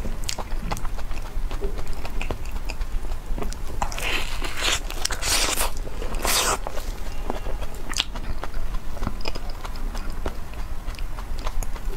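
Close-up mouth sounds of eating soft, creamy durian flesh: wet smacking and small clicks of chewing, with three short hissing bursts between about four and seven seconds in.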